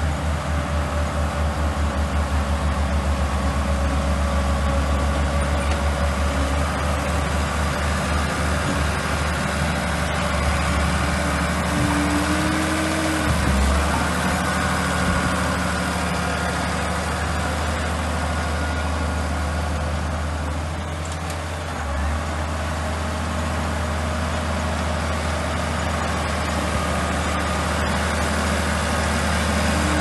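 Diesel engine of an old Komatsu crawler bulldozer running under load while it pushes and spreads dirt, a steady low hum that pulses rapidly for the first several seconds and then evens out.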